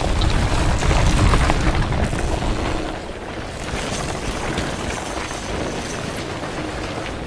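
Wind buffeting an action camera's microphone as a low, rumbling rush while the camera moves across a suspension bridge, with a few faint clicks mixed in.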